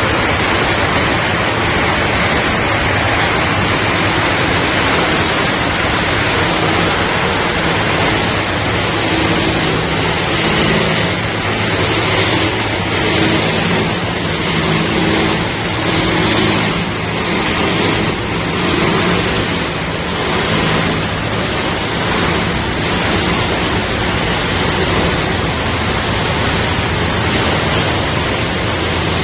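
PET bottle recycling and washing line machinery running: a loud, steady wash of noise over a low motor hum, swelling and dipping a little partway through.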